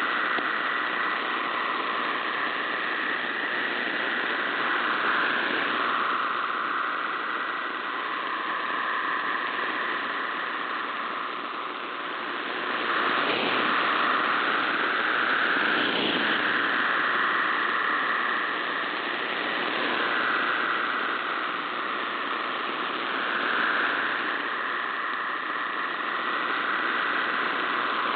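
MT63-1000 digital text-mode signal received over shortwave: a dense band of hissing tones between about 1 and 2 kHz over steady static, its strength slowly fading in and out as the reception goes marginal.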